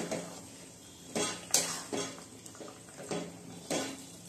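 Metal spatula scraping and knocking against a metal kadai, about five strokes, as chicken in a thick wet marinade is stirred over high flame.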